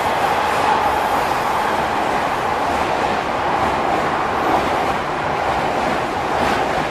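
Odakyu Romancecar limited express electric train running past along the platform, a steady loud noise of wheels on rail and running gear as the cars go by.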